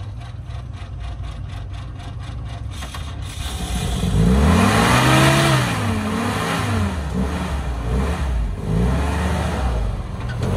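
Flat-fender Willys Jeep engine idling low for the first few seconds, then revved up and down several times as the Jeep crawls over rocks, its pitch rising and falling.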